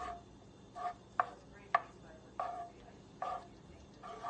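A wooden spatula stirs butter in a nonstick frying pan, scraping and knocking against the pan in short strokes about every half second to second. Two of the strokes are sharper taps.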